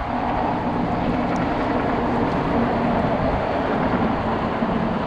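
An engine running steadily at an unchanging speed, under a dense rushing noise.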